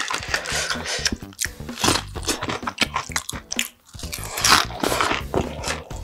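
Close-miked eating sounds: irregular crunchy bites and chewing of a mouthful of food.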